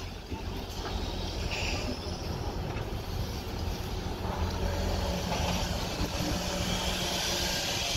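Diesel engine of heavy construction machinery running steadily with a low, even hum.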